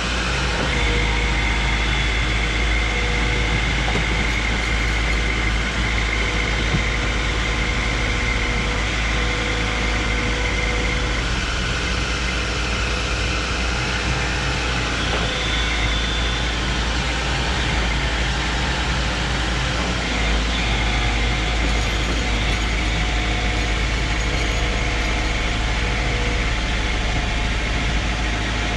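Excavator diesel engines running steadily under load as a wheeled excavator drags a tracked excavator, stuck and tilted in a muddy ditch, out of the hole, with a faint whine over the first ten seconds or so.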